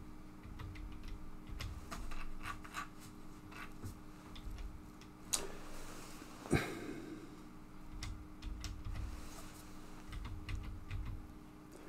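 Scattered faint clicks and taps of a computer mouse and keyboard, with two louder knocks about five and a half and six and a half seconds in, over a low steady hum.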